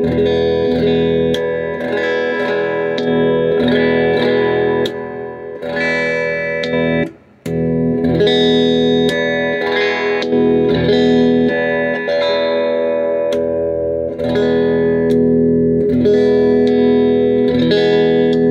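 Ural electric guitar played through an amplifier: chords strummed again and again and left ringing, with a short break in the playing about seven seconds in.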